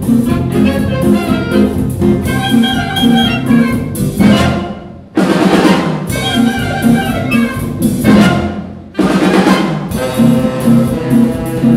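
A wind band of saxophones, clarinets, trumpets, trombones and drum kit playing a mambo live. The band breaks off twice, about five and nine seconds in, each time coming straight back in together.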